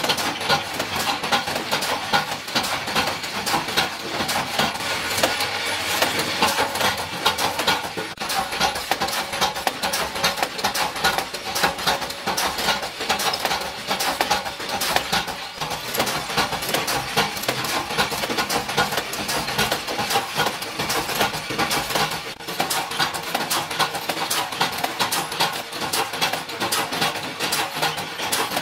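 Screw-shell forming machine running, with a steady dense clatter of small metal parts clinking and knocking together.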